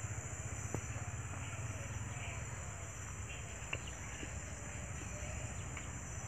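Rural outdoor ambience: a steady high-pitched drone of insects over a low rumble, with a few faint clicks.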